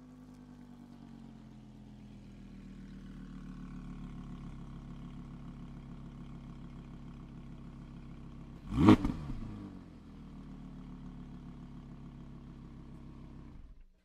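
Audi R8 engine idling steadily, with one sharp throttle blip about nine seconds in that rises and falls quickly back to idle. The engine sound cuts off abruptly near the end.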